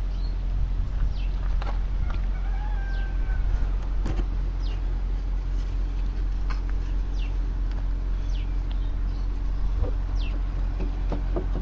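Outdoor background of a steady low hum with many short, high, falling chirps from small birds scattered through it, and a few soft knocks near the end.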